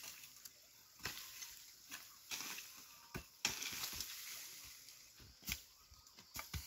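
Long-handled hand hoe chopping into dry soil and stubble: irregular strikes and scrapes, about eight in a few seconds.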